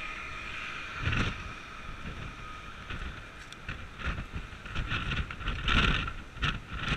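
Wind buffeting the microphone on the open deck of a cruise ship at sea, over a steady rushing noise. The wind comes in gusts, louder about a second in and again between about four and six seconds in.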